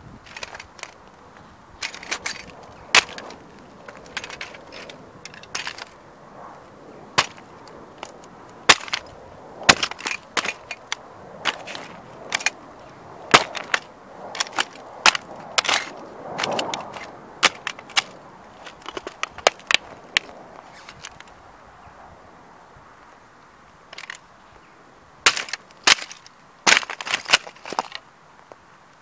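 Diecast metal model Ferrari being stamped on and crushed under heavy-soled sneakers: irregular sharp cracks and snaps of breaking metal and plastic parts. There is a quieter stretch about two-thirds of the way through, then a quick run of snaps near the end.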